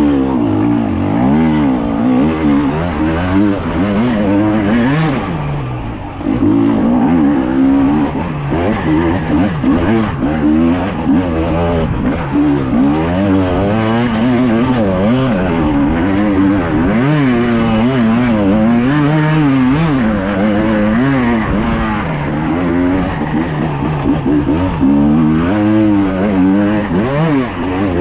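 Two-stroke enduro motorcycle engine being ridden hard, its pitch rising and falling constantly with the throttle. The engine backs off briefly about six seconds in.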